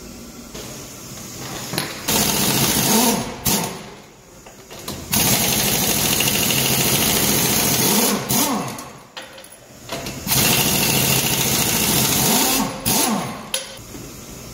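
Impact wrench spinning lug nuts off a semi-trailer's dual wheel, running in several bursts a few seconds long with short pauses between them.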